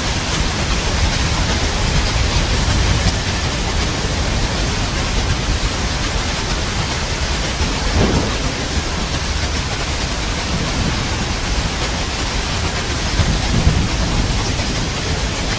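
Steady rain hissing, with low rumbles of thunder underneath and a brief swell about halfway through.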